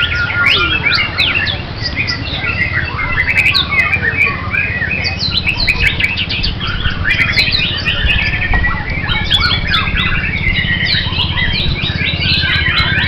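Many caged songbirds singing at once, a dense tangle of overlapping rapid chirps, trills and whistles that never stops, over a steady low rumble.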